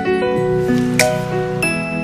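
Background music of sustained pitched notes, with a light percussive hit about halfway through.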